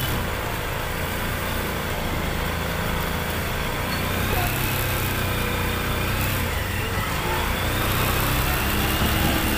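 A motor-vehicle engine running steadily, with the general noise of a busy street market around it.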